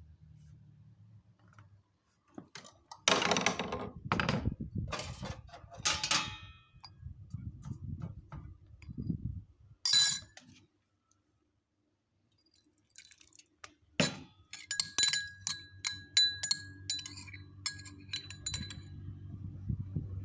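Dishes and glassware clinking and knocking: scattered knocks and scrapes in the first half, then a quick run of ringing clinks in the last few seconds over a low hum.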